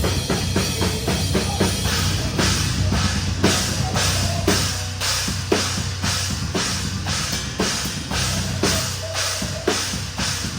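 Drum kit played live in a metalcore song, loud and close: rapid strokes for about the first two seconds, then a slower, steady beat with cymbal hits about twice a second, over the band's low, steady bass.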